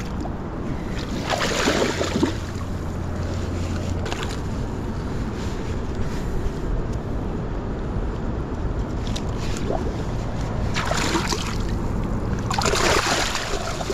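Shallow river water splashing and sloshing as a hooked chum salmon is released, with bursts about a second and a half in and twice near the end, over a steady low rush.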